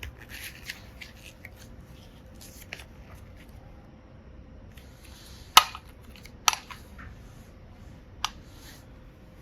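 Hands working slime mixed with small hard pieces: soft sticky crackles over the first few seconds, then three sharp clicks, the loudest about five and a half seconds in, another a second later and a smaller one near the end.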